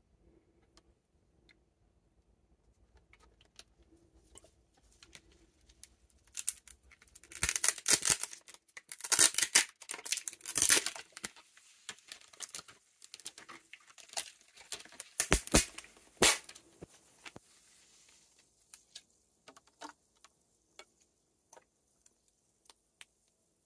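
Plastic film label being torn and peeled off a PET soda bottle: crinkling and ripping, loudest in a run of tears through the middle, then a few faint crackles as the bare bottle is handled.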